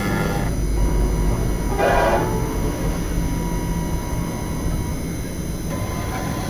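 CNC milling spindle running a 2 mm four-flute carbide end mill at about 10,000 RPM, milling brass: a steady hum, with a brief louder cutting noise about two seconds in.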